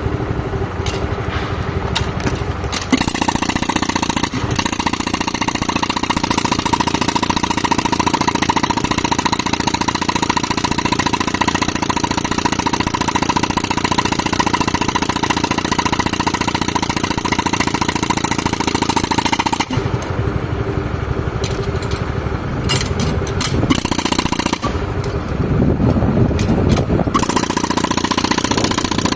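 Pneumatic rock-breaking hammer pounding rapidly, fed by a tractor-driven air compressor whose engine runs throughout. The hammer stops for several seconds about two-thirds of the way through, leaving only the engine, and starts again near the end.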